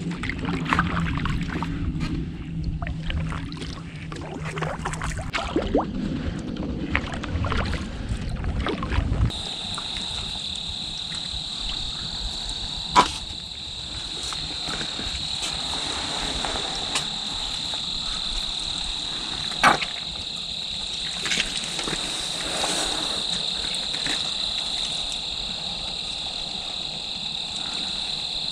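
Low rumbling and scattered knocks for about the first nine seconds, then crickets chirring steadily in a continuous high band, with two sharp snaps partway through.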